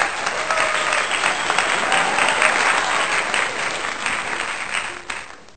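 Applause from many people clapping, dense and steady, fading away near the end.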